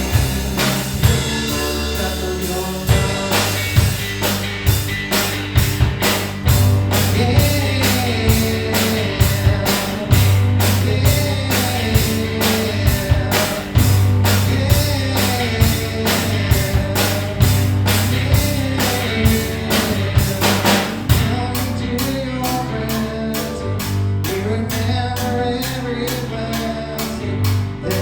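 Worship band playing a song: singing over a steady drum beat and bass.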